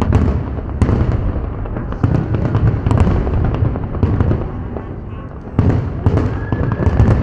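Aerial fireworks display: a dense run of booms and sharp crackling bangs from shells bursting overhead. It eases off about four and a half seconds in, then a fresh volley of loud bangs starts.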